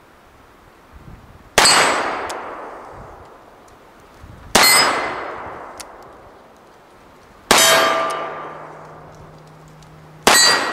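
Four shots from a black powder cap and ball revolver loaded with paper cartridges, about three seconds apart. Each shot is followed at once by the clang of a hit steel target plate, which rings and dies away.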